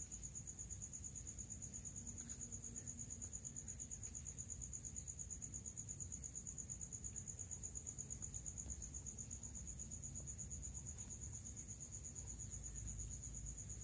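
A cricket chirping steadily in a fast, even pulse at one high pitch, over a faint low rumble of background noise.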